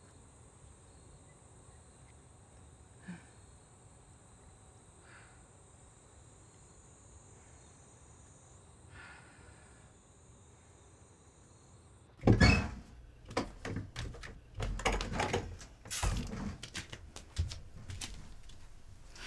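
Faint outdoor ambience: a steady high insect drone with a few faint short chirps. About twelve seconds in it gives way to a small room, where a loud sharp knock is followed by a run of irregular thuds and clatter of things being handled.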